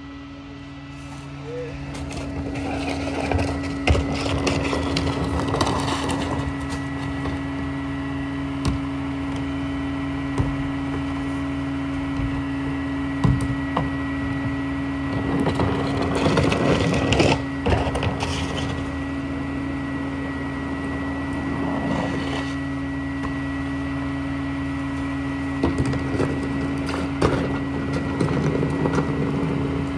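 Rear-loader garbage truck running at a steady hum with its hydraulics engaged, with four bouts of crunching and cracking as refuse is tipped into the hopper and compacted.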